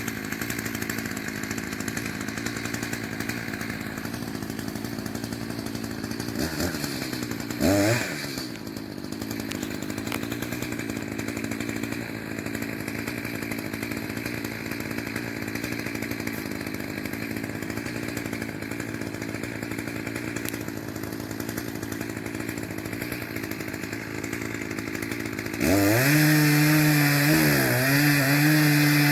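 Two-stroke chainsaw running, with one quick rev and drop about a quarter of the way through. Near the end it suddenly gets much louder and runs at high speed.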